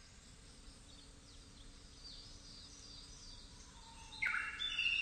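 Small birds chirping faintly, then from about four seconds in a louder bird song of clear whistled notes stepping down in pitch.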